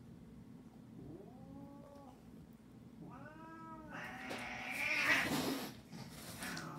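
Domestic cat meowing: two drawn-out calls that rise and fall in pitch, about a second in and about three seconds in. These are followed by a louder, harsh, noisy cry lasting a couple of seconds.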